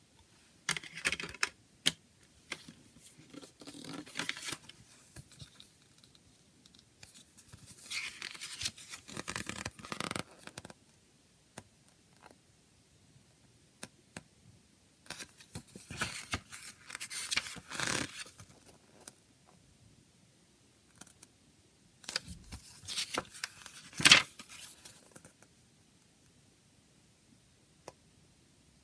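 A CD and its packaging being handled at close range: four spells of scraping and rustling with sharp clicks, with short pauses between them and the sharpest click a little before the end.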